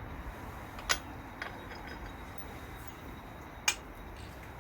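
Small metal clicks of an Allen key and bolt being handled while the motorcycle's grab handle bolts are undone: two sharp clicks a little under three seconds apart with a fainter one between, over a low steady background.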